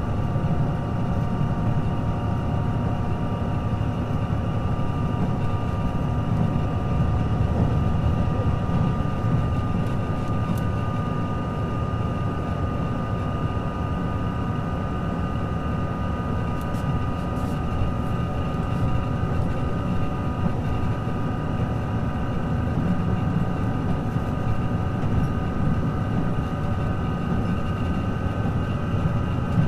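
JR Shikoku 2000 series diesel railcar running at a steady speed, heard from inside the car: a constant low rumble with several steady whining tones held above it.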